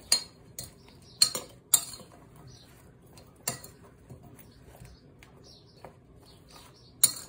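Sliced aubergine and pepper being tossed by hand in a glass bowl: soft rustling of the vegetable pieces, with irregular sharp clinks against the glass.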